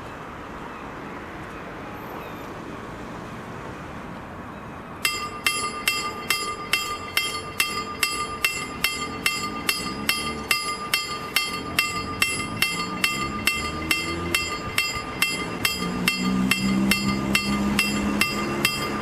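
KLD-40 level-crossing warning bell starting up about five seconds in and then striking in a rapid, even rhythm, a few strokes a second, as the pedestrian crossing's signals activate. Street traffic noise runs underneath, with a vehicle's engine rising and falling near the end.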